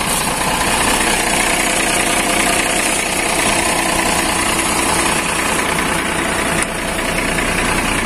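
Mercedes-Benz 1417 truck's diesel engine idling steadily during a warm-up run after the truck has stood unused.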